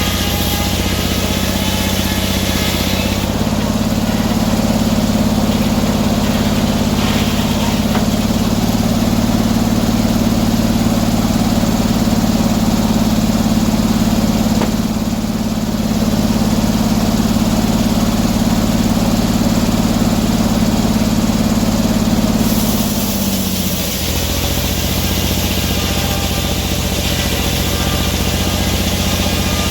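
Engine of a portable sawmill running steadily. It speeds up about three seconds in, slows down around twenty-four seconds, and picks up again near the end.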